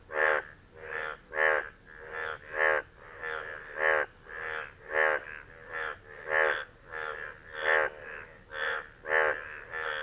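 Male Indian bullfrog's breeding call: a steady run of short, nasal croaks, about three every two seconds, some louder than others, made with its blue vocal sacs puffing out on each call.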